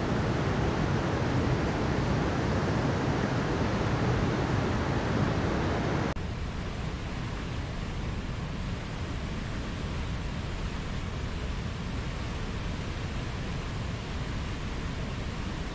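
Steady rushing of flowing water from a forest stream's small cascade. About six seconds in it cuts abruptly to a different, quieter rush of river rapids running through a rocky gorge.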